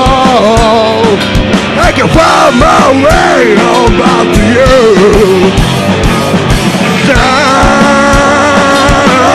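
Live rock band playing loud: electric guitars over a drum kit keeping a steady kick-drum beat, with singing, and a bending, wavering melody line through the middle.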